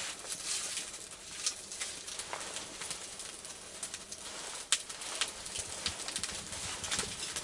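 A small, newly lit fire of kindling and thin sticks crackling, with irregular sharp snaps and pops over a soft hiss.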